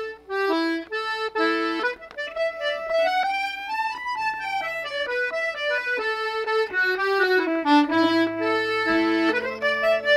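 Accordion playing the melody of an Irish traditional tune, with quick runs of notes climbing and falling; low held notes join about eight seconds in.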